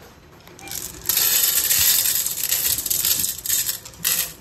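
Dry cat kibble poured onto a metal plate: a dense rattle of pellets striking the metal starts about a second in and thins to a few scattered clicks near the end.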